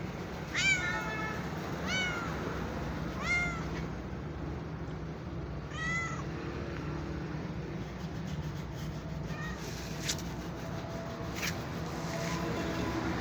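A domestic cat meowing four times, each meow a short call that rises and then falls in pitch, over a steady low background hum. A couple of faint clicks follow later on.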